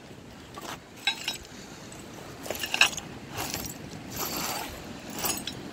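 Loose beach debris of broken glass, pottery and stones clinking and scraping against each other in a string of irregular clatters as it is moved.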